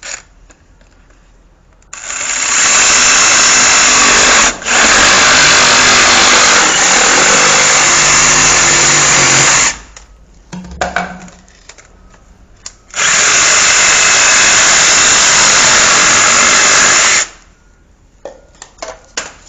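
Power saw cutting through the ABS plastic drain pipe at its marked line, running in two long, loud bursts, the first about eight seconds with a brief break, the second about four seconds, with small handling knocks between them.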